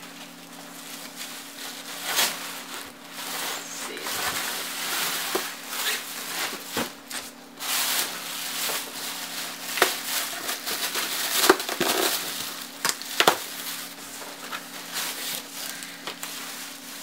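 Packaging being handled: a foam wrap sheet and plastic bag crinkling and rustling as a monitor is lifted out of its cardboard box, with about five sharp cracks along the way.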